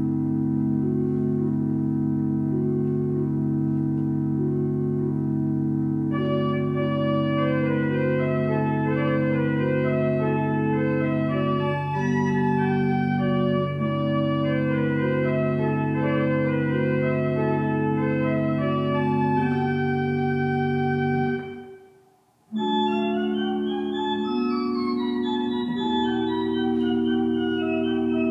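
Church organ playing the postlude at the close of a service: held bass notes and chords, with a faster upper line joining about six seconds in. The music breaks off briefly a little past two-thirds of the way through, then starts again with a new passage.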